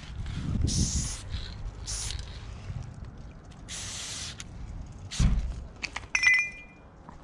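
Aerosol spray-paint can hissing in several short bursts against a wall. About five seconds in comes a dull thud, then a few sharp clicks with a brief metallic ring.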